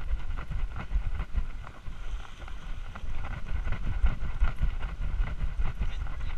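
Wind buffeting and rubbing noise on an action camera strapped to a small dog's harness as the dog moves: a continuous low rumble broken by frequent small knocks.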